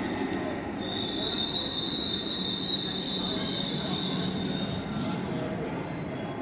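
CFL double-deck passenger train rolling past along the platform with a steady rumble. A high squeal from the train comes in about a second in and moves to a higher pitch near the end.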